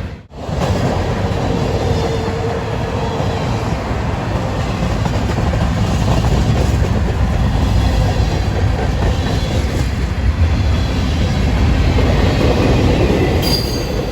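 Freight train rolling past, a steady low rumble with the clickety-clack of wheels over the rails. The sound drops out for an instant just after the start, and a brief high wheel squeal comes near the end.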